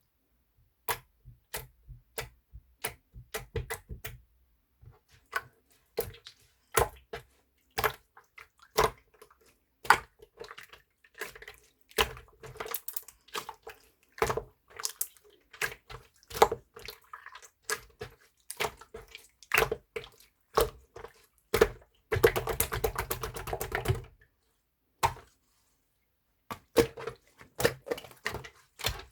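Black slime being squished and poked by hand, making irregular wet clicks and pops. About three quarters of the way through, there is a dense run of rapid crackling lasting about two seconds.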